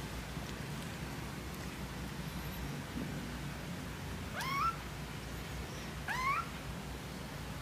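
Young kittens mewing: two short, high-pitched mews that rise in pitch, about a second and a half apart, over a faint steady low hum.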